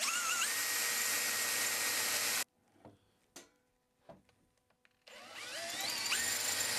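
Power drill boring a quarter-inch dowel hole through a doweling jig into the end of a wooden chair rail: the motor spins up and runs steadily for about two and a half seconds, then stops. A few light clicks follow, and the drill spins up again about five seconds in.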